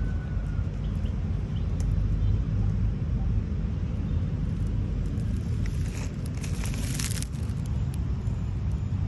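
Steady low rumbling in the background, with a short rustle of dry leaves about six to seven seconds in as a kitten gets up and moves in the leaf litter.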